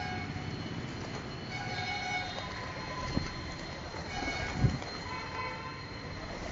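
Horns tooting, about three short blasts of several held pitches, over a steady low rumble. About four and a half seconds in comes a loud flap of wings as a pigeon lands.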